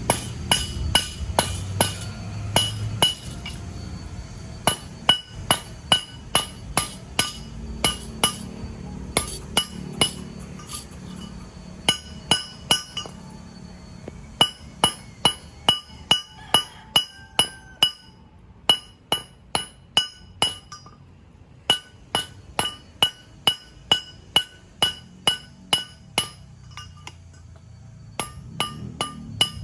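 Hammer striking metal over and over, about two blows a second in spells with short pauses, each blow ringing at a high pitch: hand bodywork on the car's panels.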